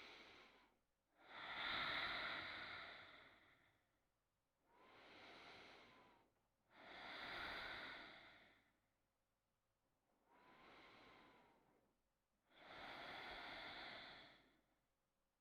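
Faint, slow, deep breathing, about three full breaths, each a quieter breath followed by a louder one, with short pauses between.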